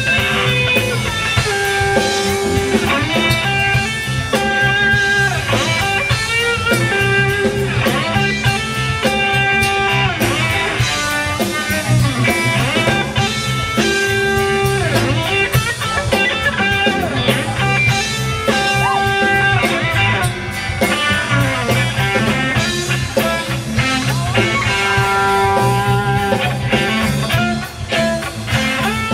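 Electric guitar lead played live through an amplifier: held notes and bent, gliding notes in a bluesy style over a steady low backing.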